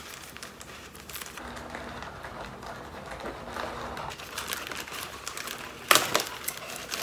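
Packaging crinkling as a makeup-remover glove's wrapper is opened by hand, with a sharp tear or snap about six seconds in.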